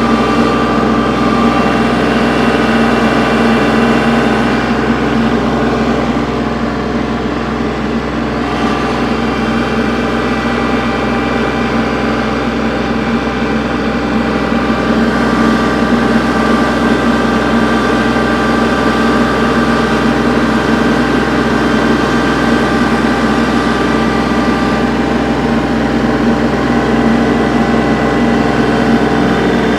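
Kubota L3301 tractor's three-cylinder diesel engine running steadily while working a large log with its front-loader forks, easing off slightly about seven seconds in.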